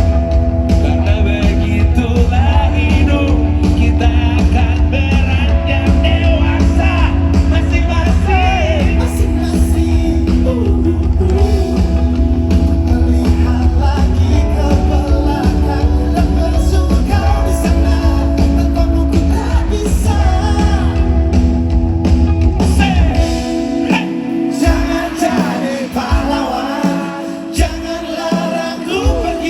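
Live band playing a pop-rock song with singing, recorded on a phone in the concert crowd. A heavy bass line runs through most of it, then drops out about three quarters of the way in, leaving lighter accompaniment with separate low thumps.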